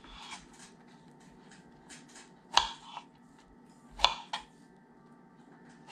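Kitchen knife slicing strawberries on a plastic cutting board: a few scattered light taps of the blade hitting the board, with two louder knocks, one past the middle and one a second and a half later.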